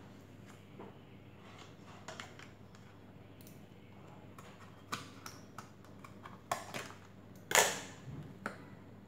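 Scattered light clicks and knocks of objects being handled, irregular, with one louder knock about seven and a half seconds in, over a faint steady low hum.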